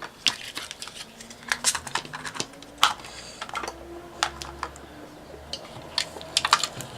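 Irregular light clicks and taps of small hard objects being handled, a hand-held craft tool and its parts picked up and moved about.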